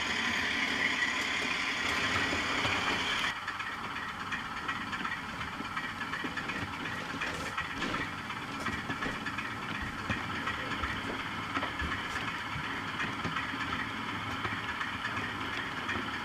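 Model diesel locomotives' sound-decoder engine sound, played through their small onboard speakers. About three seconds in, one engine sound cuts abruptly to another, quieter one as a locomotive runs slowly with its train, with light clicks from wheels on the model track.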